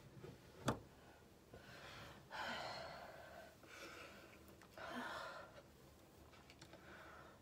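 A woman breathing heavily, with two long noisy breaths or sighs about two and a half and five seconds in. A sharp click just under a second in.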